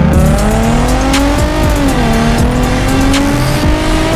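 Car engine accelerating hard: its note climbs, drops at a gear change about two seconds in, then climbs again, over background music with a steady beat.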